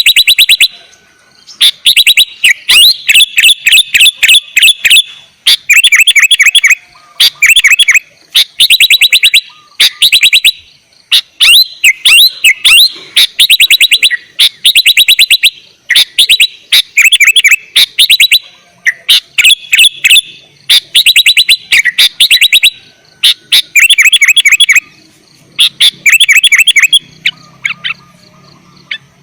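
Sooty-headed bulbul (kutilang) singing full-on: loud phrases of rapid, clear repeated notes, each about a second long, following one another with short pauses.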